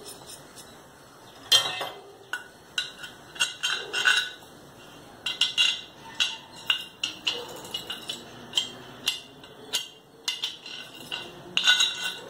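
Metal hardware clinking and clattering as it is handled: galvanised iron threaded rods, washers and nuts knocking together in irregular clicks, the sharpest about a second and a half in, around five to six seconds in and near the end.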